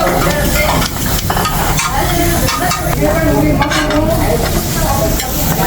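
Rice sizzling as it is stir-fried on a hot tabletop grill pan, with a spatula scraping and chopping quickly and repeatedly against the pan.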